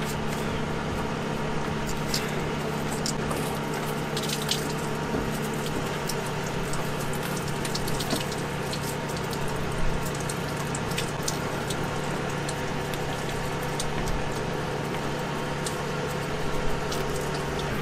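Scattered light clicks and taps of gloved hands unclipping connectors and handling parts around a car's radiator fan assembly, over a steady low hum and hiss.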